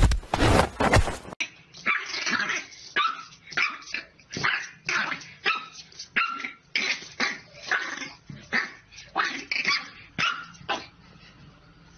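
A French bulldog puppy barking at its own reflection in a mirror: short, high yapping barks, about two a second, after a loud noise in the first second and a half.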